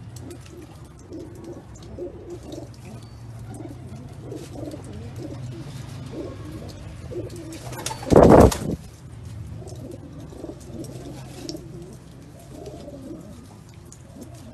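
Female Iranian high flying pigeons cooing, many short low coos overlapping, over a steady low hum. About eight seconds in, a loud, brief noisy burst sounds close to the microphone.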